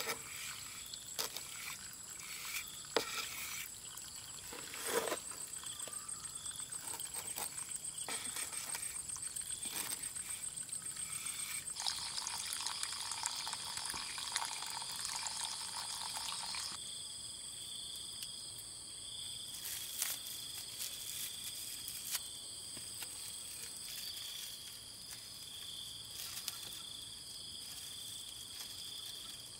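Wet scraping and short taps of a trowel working fresh cement around a PVC pipe, mostly in the first few seconds and again about twenty seconds in. Under them runs a steady high chirring of insects, one trilling rapidly for several seconds, with a denser buzz joining for a few seconds midway.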